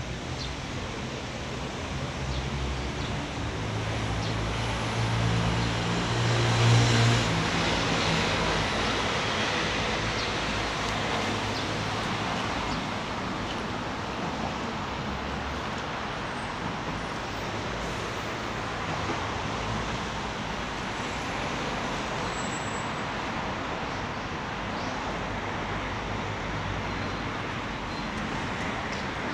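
Road traffic on a city street: a steady hum of passing cars. One vehicle passes close, its engine hum building to the loudest point about six to seven seconds in, then fading.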